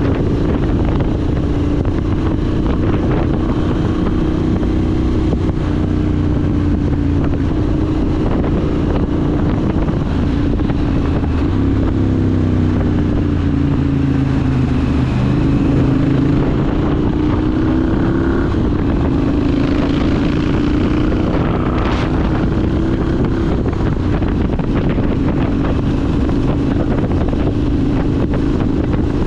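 Triumph Scrambler 900's 270-degree parallel-twin engine through an aftermarket ZARD exhaust, heard from the rider's seat at road speed. Its note drops about halfway through as the bike slows, then climbs again as it accelerates, with wind noise on the microphone throughout.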